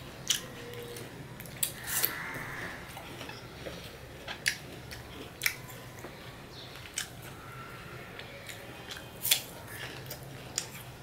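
Crisp crunches of raw apple slices being bitten and chewed, about eight sharp crunches spaced irregularly.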